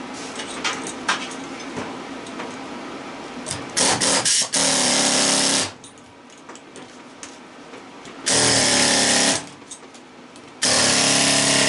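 Pneumatic air chisel hammering at a scrap electric motor in three loud bursts of about a second each, after a few short stutters. Lighter clicks of parts being handled come first.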